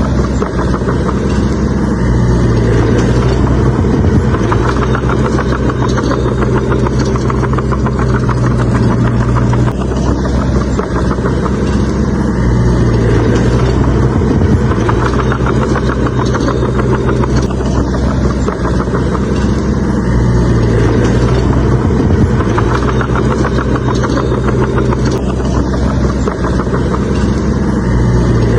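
Bulldozer's diesel engine working steadily, its note rising and falling in a cycle repeating every several seconds, with a fast rattle over it.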